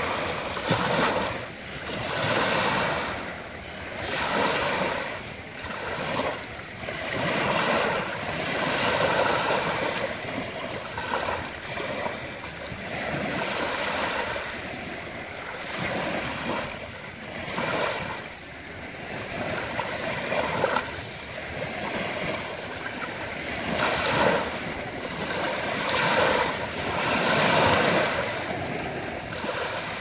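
Small Caspian Sea waves breaking and washing up a beach of fine pebbles and shell grit. The wash swells and falls back every couple of seconds, unevenly.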